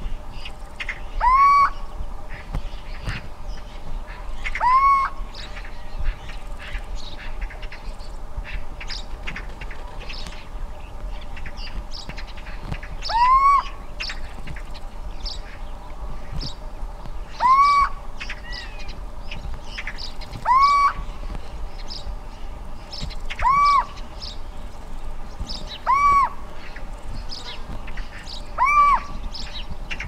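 Little owl (Athene noctua) giving its advertising call: a drawn-out hoot that rises in pitch, eight times at uneven gaps of a few seconds. Sparrows chirp throughout.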